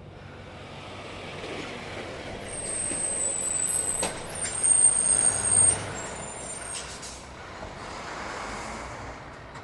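Scania T Longline V8 truck going by, its sound building to a peak about five seconds in and then falling away, with a thin high whistle over the loudest part.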